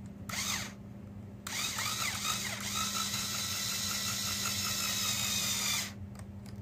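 A small electric motor, a powered string winder turning a guitar tuning peg, whirs briefly, then about a second and a half in runs for about four seconds with a steady whine after spinning up.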